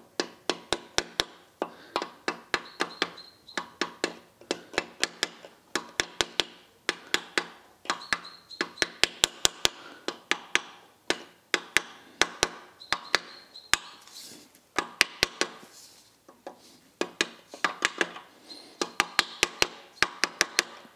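Rubber mallet tapping a steel-backed main bearing shell down into its saddle in a Citroën U23 engine block: quick runs of light taps with short pauses between, some runs carrying a faint metallic ring.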